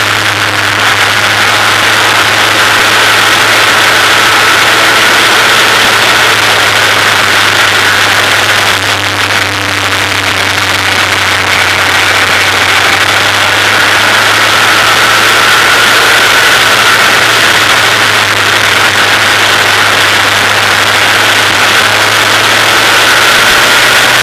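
Formula 2000 race car's engine running at speed on track, heard through a camera mounted on the car beside the front wheel, with a dense wash of wind and road noise. The engine note dips briefly about nine seconds in, then its pitch slowly sags and climbs again near the end.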